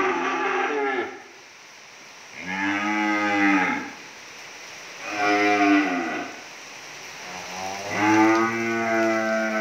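Cattle mooing: long, drawn-out calls, one about every two to three seconds.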